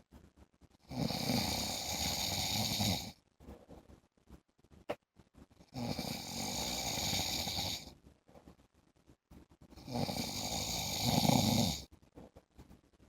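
A man snoring in deep sleep: three long, rasping snores of about two seconds each, coming roughly every four and a half seconds with quiet breaths in between.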